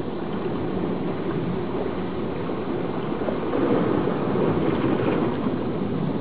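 Steady rush of sea surf, swelling for a couple of seconds midway through.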